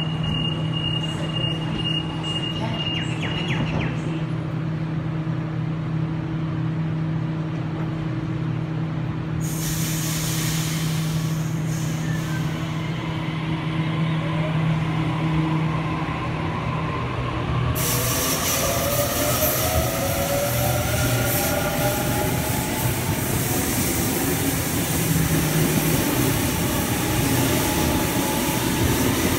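Sydney Trains Series II Waratah electric train: a rapid run of high door-closing warning beeps at the start over the steady hum of the standing train. A hiss begins about ten seconds in. The train then pulls away, its traction motors whining up in pitch over rising wheel and rail noise.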